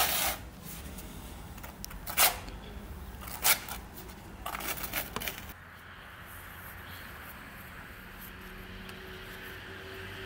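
A notched steel trowel scraping tile adhesive onto a brick wall, in a few short rasping strokes over the first five seconds. After that it turns to a quieter steady background hum.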